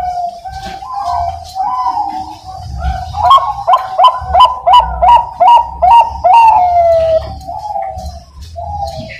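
Bangkok-type zebra dove (perkutut) singing: a run of quick, evenly spaced coo notes, loudest in the middle, over continuous softer cooing.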